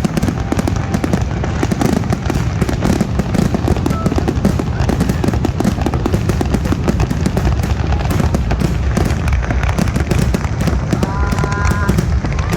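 A large aerial fireworks display going off in rapid, unbroken succession: dense crackling over continuous low thuds of shell bursts.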